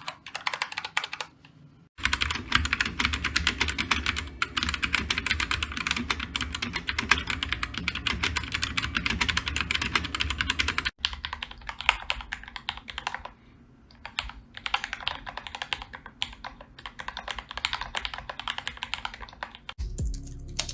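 Fast typing on computer keyboards: a dense, rapid stream of key clicks. The sound changes abruptly about two seconds in and again around eleven seconds, as one keyboard recording gives way to the next. Low background music comes in near the end.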